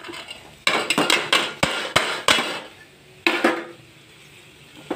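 Sweet corn kernels knocked from a metal plate into an aluminium kadai: a quick run of metallic knocks and clatter as the plate is rapped against the pan about a second in, then a few more clanks a little past the middle.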